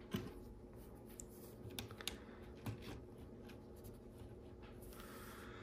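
Faint, scattered clicks of plastic Lego Technic pieces being handled and pressed into place, a few sharp ones among softer rustling.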